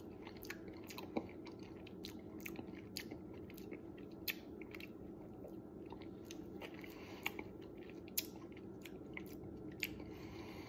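Faint mouth sounds of a person eating a spoonful of Marionberry pie ice cream: chewing and smacking, with many small scattered clicks.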